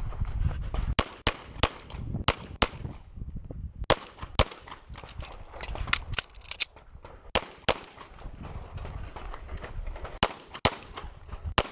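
Handgun shots fired in quick, irregular strings, some in close pairs, with short pauses between groups, typical of a shooter working through a USPSA stage.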